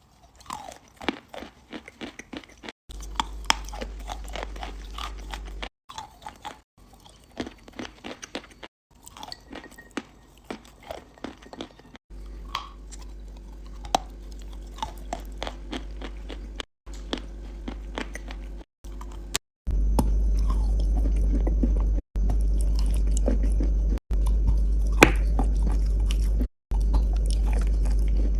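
Close-miked biting and chewing of a crunchy, chalky mineral, with many sharp crunches. The sound is cut into short pieces, and in some of them a steady low hum sits under the crunching, louder in the last third.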